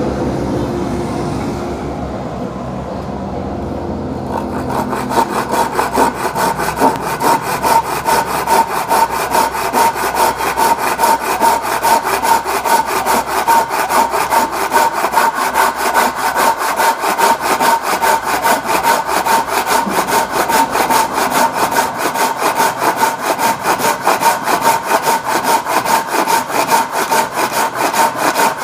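Hand saw with freshly sharpened teeth cutting through a thick block of wood. It starts quietly for the first few seconds, then settles into quick, even back-and-forth strokes that rasp through the cut.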